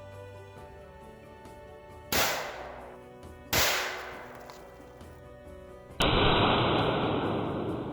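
Shots from an M96 Swedish Mauser rifle in 6.5×55: two sharp reports about a second and a half apart, each fading quickly, then a third, duller blast about six seconds in with a long fading tail, over background music.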